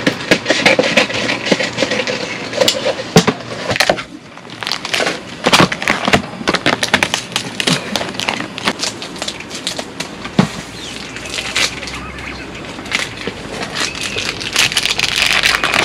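Food sizzling and crackling in a hot pan, a steady hiss with many irregular pops and clicks.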